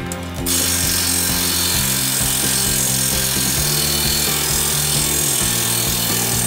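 Power tool running steadily as it backs out a threadlocked driveshaft bolt, starting about half a second in, over background music.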